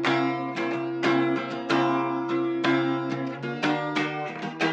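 Guitar playing instrumental music: chords picked or strummed about twice a second, with low notes ringing on beneath them.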